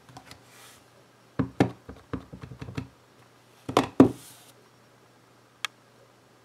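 Clear acrylic stamp block tapped several times in quick succession on an ink pad to ink the rubber stamp, followed about four seconds in by a louder knock of the block on the work surface, and a single light click near the end.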